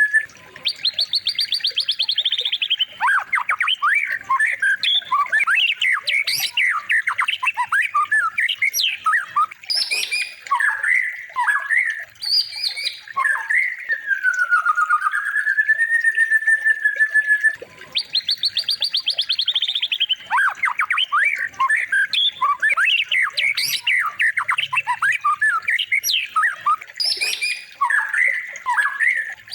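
Recorded songbird song played as a training track for white-rumped shamas: loud, varied whistles, rapid rising trills and chattering notes. The same sequence of phrases repeats about every 18 seconds, so it is a looped recording.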